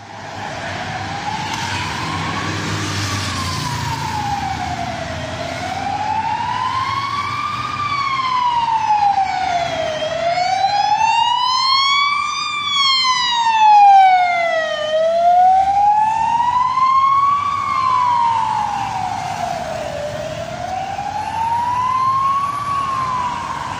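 Ambulance's electronic siren in wail mode: one tone rising and falling slowly, about every five seconds. It grows louder as the ambulance passes about halfway through, then fades a little as it drives away, with traffic rumbling underneath.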